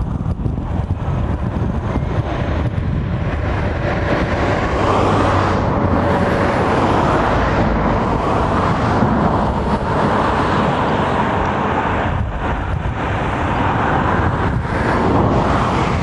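Road traffic: vehicles passing, their tyre and engine noise swelling and easing, over a steady low rumble.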